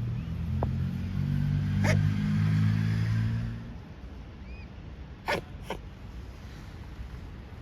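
Low hum of a passing vehicle, loudest in the first three and a half seconds and then fading. An adult mute swan gives short calls near two seconds in and twice just after five seconds. Faint high rising-and-falling peeps of cygnets come in between.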